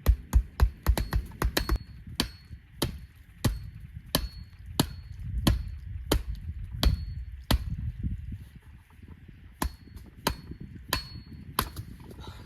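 Repeated hard blows of a tool on wood, each with a short metallic ring. A quick run of strikes in the first two seconds gives way to slower, even blows about one every two-thirds of a second, then a short pause and a few more strikes near the end.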